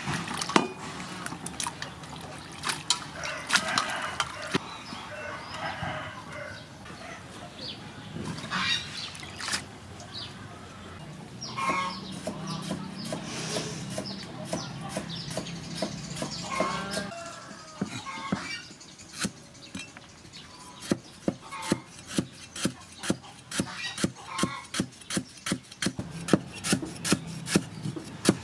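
Chickens clucking, with a rooster crowing. In the last third, a cleaver slices lemongrass stalks on a wooden chopping board with steady strokes, about two a second.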